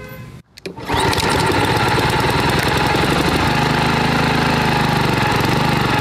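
Honda HRX217 walk-behind mower's gas engine running steadily. It cuts in about a second in, and a deeper hum grows in about halfway through.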